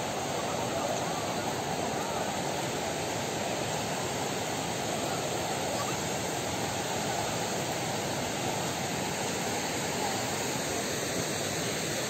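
Waterfall and stream water rushing, a steady unbroken wash of noise.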